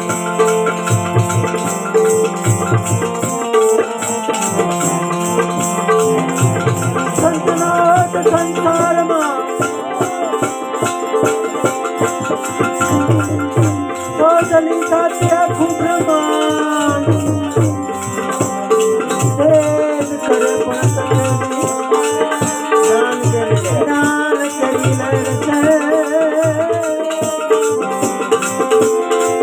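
Gujarati devotional bhajan music: a steady drum beat under sustained melodic notes, with a shaken rattle keeping a fast, even rhythm.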